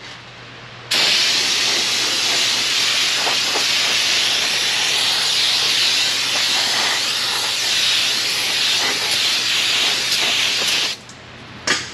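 Aerosol can of brake parts cleaner spraying onto a new brake rotor: one long, steady hiss that starts about a second in and stops about a second before the end.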